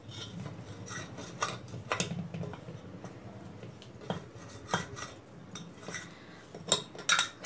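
Steel spoon scraping and clinking against the inside of a stainless steel pot, working the dried cream off the pot's sides into thickened rabri. The scrapes come irregularly, with a few sharper clinks near the end.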